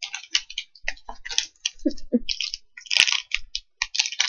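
Plastic candy-bar wrapper crinkling and crackling in quick irregular bursts as it is handled, loudest about three seconds in.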